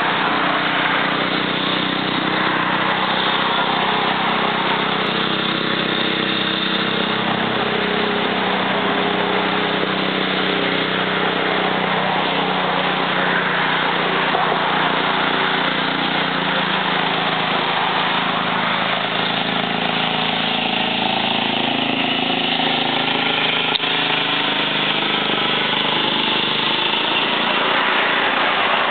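Riding lawn mower's small engine running steadily as it drives along the road, a constant engine hum over a dense hiss; its tone shifts slightly in the second half as the mower goes by.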